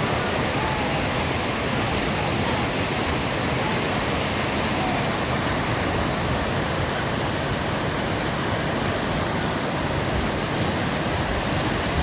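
Steady rush of fast-flowing whitewater on a river.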